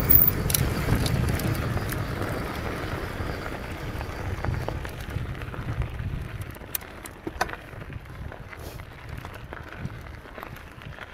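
Mountain bike tyres rolling over dirt and gravel, with wind rushing on the action camera's microphone. The rumble grows steadily quieter, leaving scattered small clicks and crunches of gravel near the end.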